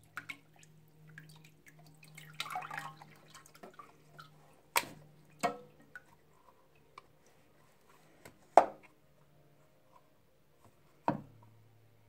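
Shell of a soaked toy dinosaur egg being broken and picked apart by hand over a pot of water: scattered sharp clicks and snaps a few seconds apart, with drips into the water.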